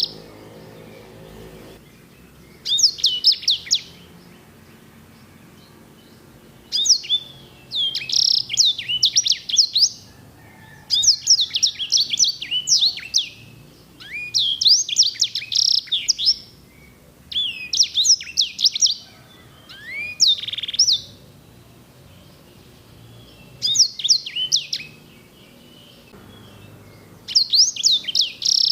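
A sanger (black-throated canary) singing in short bursts of fast, rolling trills and sweeping notes, each phrase one to three seconds long and separated by brief pauses.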